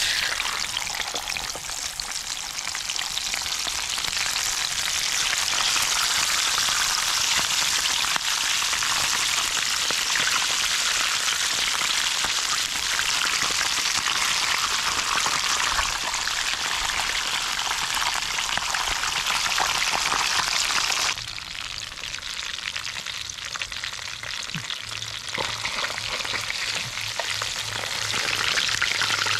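Whole small fish frying in hot oil in a pan, a steady, loud sizzle that starts as they go into the oil. About two-thirds of the way through it drops abruptly to a quieter sizzle, which builds again near the end.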